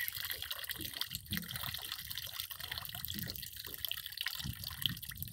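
Lemon-and-soy sashimi marinade draining off a plate in a thin stream into river water, dribbling steadily with many small splashes.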